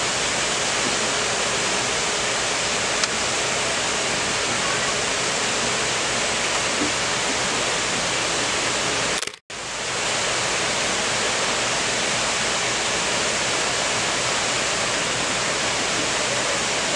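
Steady rush of a waterfall pouring over rocks, cutting out for a split second about halfway through.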